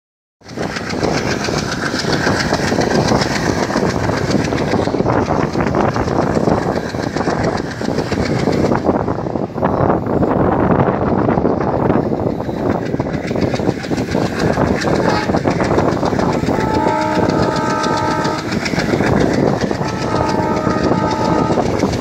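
Passenger train running at speed, heard from a coach window: a loud rumble and rail noise with rapid clicking of wheels over the track. The WDM3D ALCO diesel locomotive's engine chugs ahead. Near the end the locomotive's horn sounds twice, each blast a little under two seconds.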